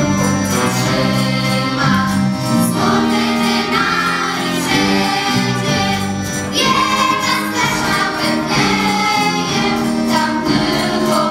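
Children's choir singing a Polish Christmas carol, with instrumental accompaniment holding steady low notes under the voices.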